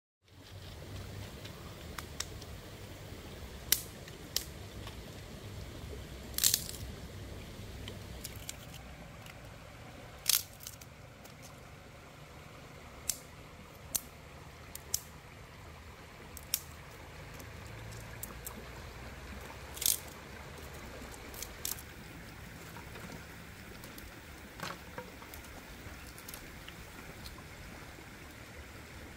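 Irregular sharp clicks and knocks of close-up handling, a dozen or so scattered through, over a steady low hush of flowing river water.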